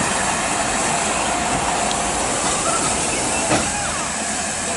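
LMS Black 5 (5MT) 4-6-0 steam locomotive running light past the platform, giving off a steady hiss of steam. One sharp knock comes about three and a half seconds in.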